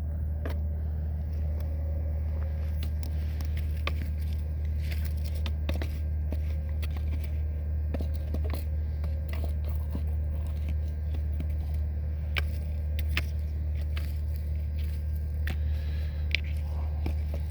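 Campfire wood crackling, with irregular small pops and snaps, one sharper snap near the end, over a steady low hum.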